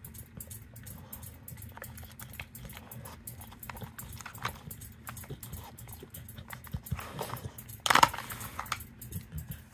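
Dog snuffling and nosing at a plastic treat-puzzle feeder, with a string of small plastic clicks as its lids shift. About eight seconds in, a paw pushes a sliding lid with a louder, brief plastic clatter.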